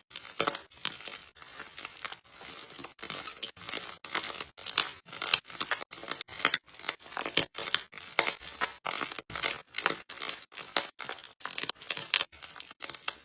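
Slime being squeezed and pressed by hand: a quick, even run of short, wet, crackly squishes, about two or three a second.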